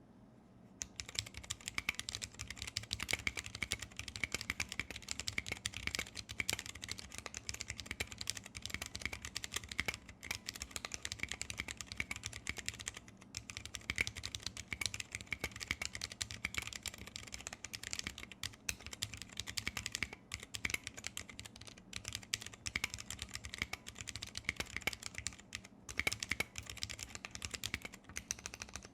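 Continuous fast typing on a custom 60% mechanical keyboard with lubed vintage brown Alps switches in a brass plate: a dense stream of clicky keystrokes with brief pauses, starting about a second in.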